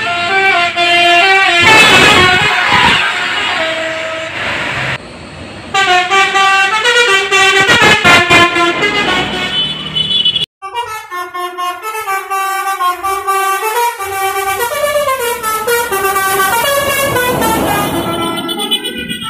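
Indonesian 'telolet' multi-tone bus horns playing stepping melodic tunes, with traffic noise under the first part. About ten seconds in the sound cuts off sharply and a second telolet tune plays over a quieter background.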